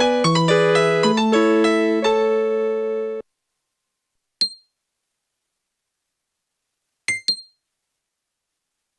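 Nokia 6101 mobile phone playing a ringtone: a quick electronic keyboard-like melody of several notes at once that cuts off suddenly about three seconds in. It is followed by a single short beep and, near the end, two quick beeps, short alert tones from the phone.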